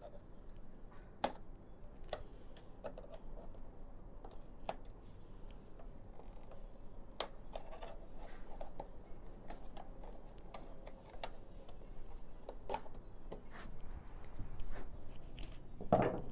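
Scattered light clicks and taps from an Allen key and plastic push pins being worked out of the plastic side cover of a Yamaha FZ-09 motorcycle. A duller, louder knock comes near the end.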